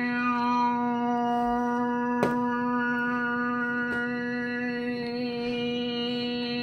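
A steady droning hum held on one pitch, like a chanted mantra, its tone colour slowly shifting, played from a TV and heard in the room. A single sharp click about two seconds in.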